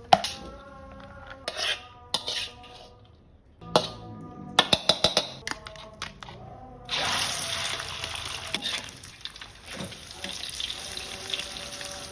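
Fried rice being stirred in a pan: a spatula knocking and clinking against the metal, then about seven seconds in a loud frying sizzle comes in suddenly and keeps going. Background music plays throughout.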